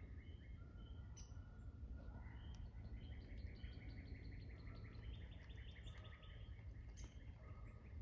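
Faint chorus of several songbirds, with rapid runs of short repeated notes and scattered higher chirps, over a low background rumble.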